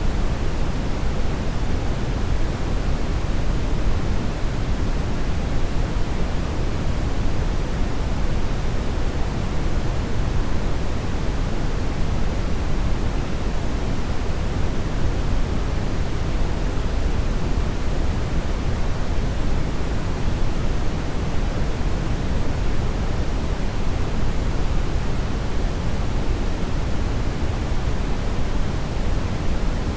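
Continuous brown noise: a steady, unchanging rush that is deep and full in the bass and fades off toward the treble.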